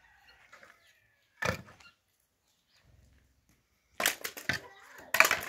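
Sharp cracking and knocking impacts: one about a second and a half in, then a quick cluster of several near the end.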